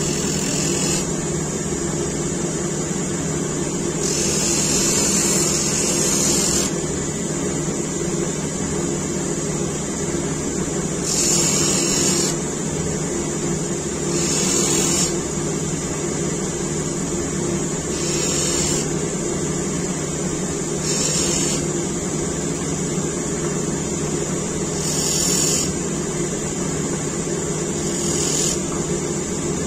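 Bench grinder motor running with a steady hum while the steel blade of a hand-forged spoon knife is pressed against the spinning wheel in short passes. Each pass gives a high hiss lasting about a second, eight or so times, with the longest about four seconds in.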